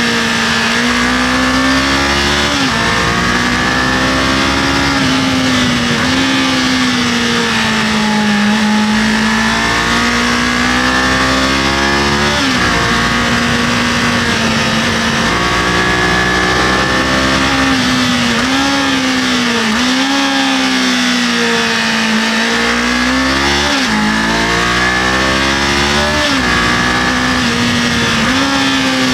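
Kawasaki KLE500 parallel-twin engine under way, its note repeatedly climbing with the revs and dropping sharply as gears are changed and the throttle is eased, over steady wind noise.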